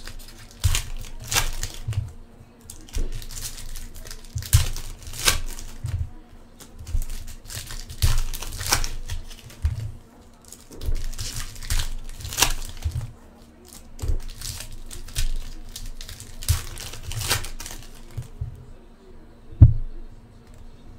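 Foil trading-card pack wrappers being torn open and crinkled by hand, in a run of irregular crackling rustles. Near the end the crinkling stops and there is one sharp tap.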